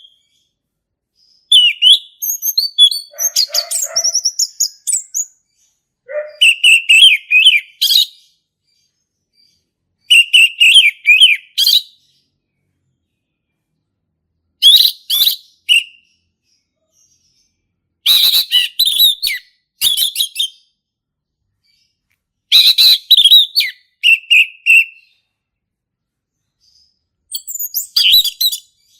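Male orange-headed thrush singing loud, varied whistled phrases, each one to two seconds long, with short silent pauses between them: about seven phrases in all.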